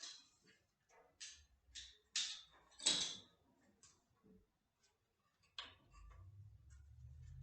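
A few scattered knocks and clicks of handling, the loudest about three seconds in. Then, after a sharp click near the end, an electric winch motor starts up with a steady low hum.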